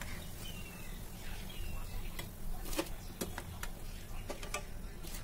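Dal fritters (dahi bada) sizzling in hot oil in a pan, with several light clinks of a perforated steel skimmer against the pan as they are scooped out.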